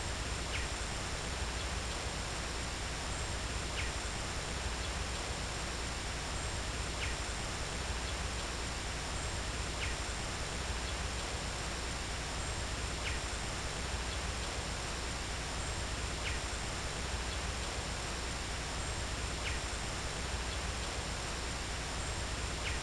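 Steady rushing outdoor ambience with a faint, short, high chirp repeating about every three seconds.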